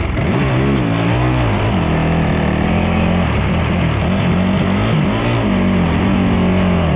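Racing ATV engines running close by. The pitch rises and falls several times, as with throttle blips, then settles into a steady idle over the last couple of seconds.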